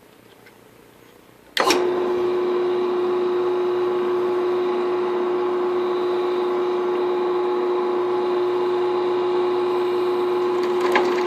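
Drill press switched on about a second and a half in, its motor and spindle then running at a steady speed with a steady hum, as it drills the tap-drill hole for a Helicoil thread insert. A few sharp clicks come near the end.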